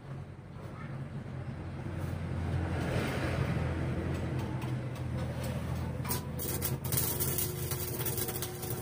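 A motor vehicle engine rumbling past, swelling and then fading over the first several seconds. From about six seconds in comes a dense sizzling crackle, typical of a stick-welding arc on steel.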